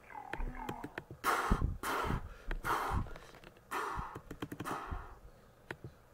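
Five short, loud, breathy huffs or gasps at uneven intervals, with scattered small clicks in between.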